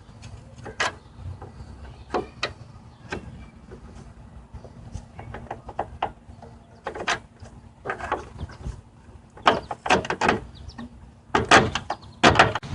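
Clicks and knocks of a plastic car headlight assembly and its clips being handled and worked into place, scattered at first and coming thicker and louder in the last few seconds.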